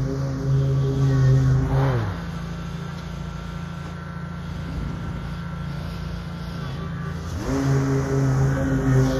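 Bobcat ZS4000 stand-on mower's engine running at high throttle, then dropping to a quieter, steady low idle about two seconds in. About seven seconds in it revs back up to full throttle.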